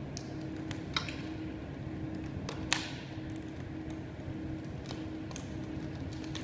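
Plastic PDLC smart-film sheet crackling and ticking as it is handled and laid onto a glass pane. There are a few sharp clicks, the loudest about a second in and just under three seconds in, over a steady low hum.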